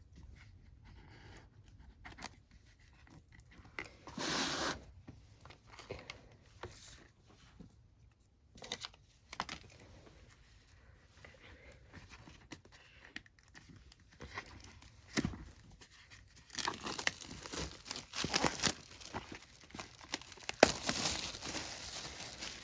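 Merchandise packaging being torn open and crinkled by hand: a short rip about four seconds in, scattered handling clicks, then a longer stretch of crinkling and tearing over the last six seconds.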